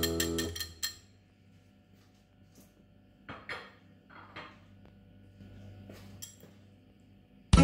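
Quiet kitchen handling sounds: a few light clicks and soft swishing sounds of dishes and utensils around a plastic mixing bowl, mostly around the middle. Guitar background music fades out in the first second and cuts back in at the very end.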